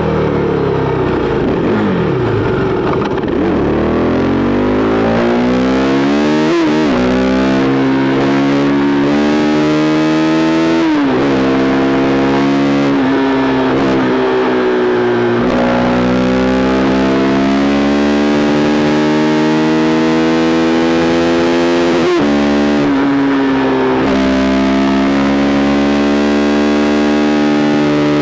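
KTM RC390's single-cylinder engine through an SC Project replica exhaust, ridden hard through the gears. The raspy note falls at first, then climbs steadily and drops sharply at each upshift, about four times.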